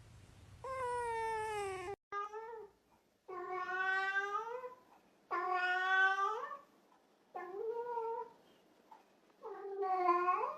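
A domestic cat meowing, six drawn-out caterwauling calls in a row, each roughly a second long with short gaps between them.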